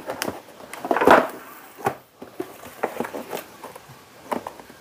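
Cardboard boxes being handled: a scraping rustle of cardboard about a second in, then scattered light taps and knocks as a box is moved about and set down on a tiled floor.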